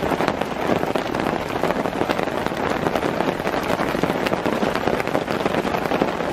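Heavy rain falling steadily, a loud even hiss packed with the crackle of close drop hits.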